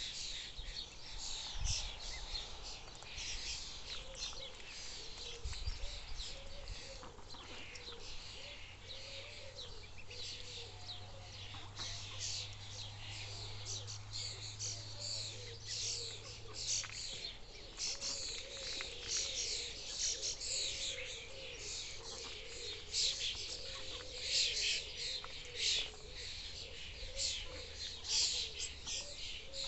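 A group of ducklings peeping, many short high chirps overlapping without pause, growing busier about halfway through.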